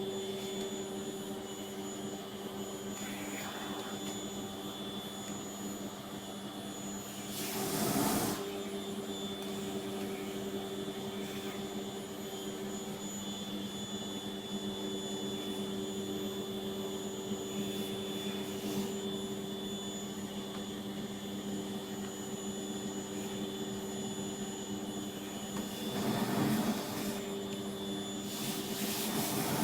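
Vacuum cleaner motor running steadily with a constant droning whine. Its sound swells briefly twice, about a quarter of the way in and near the end.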